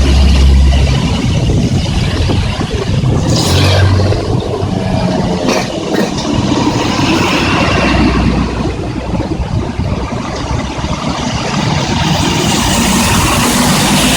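Heavy rain falling, with vehicles passing on a wet highway: engines and tyre spray swell and fade as each goes by, one passing close near the end.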